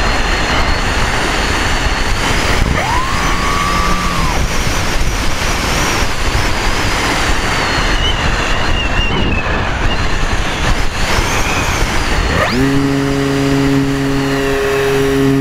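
Wind rushing over the onboard camera of a flying model aircraft, with the thin high whine of its motor wandering up and down in pitch. About twelve and a half seconds in, a quick rising sweep gives way to a steady low hum with several pitched tones.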